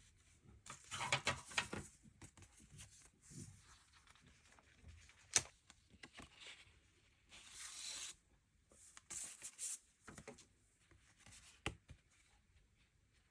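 Packaging being torn open and rustled by hand, in irregular crinkling bursts, with a couple of sharp clicks.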